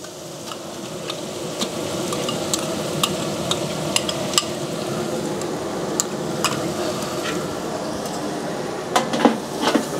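Ginger paste frying in hot oil with fried onions and garlic paste in a large metal pot. There is a steady sizzle that grows over the first couple of seconds as the paste goes in. A steel spoon scrapes and clicks against the pot, with a quick run of clicks near the end.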